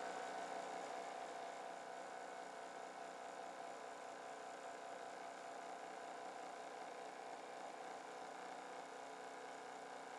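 Home cotton candy machine's electric motor spinning its heated head, a steady quiet hum with a faint whine.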